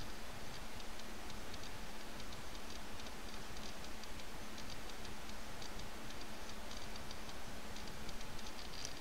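Several mechanical clocks ticking at once, their sharp ticks falling out of step with one another, several a second.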